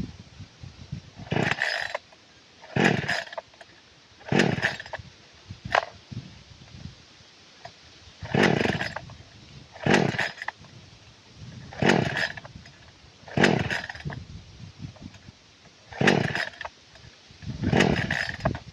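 Newly bought chainsaw being pull-started again and again: about ten short bursts of the recoil starter cranking the engine, mostly in pairs about a second and a half apart, with quiet gaps between. The engine does not keep running.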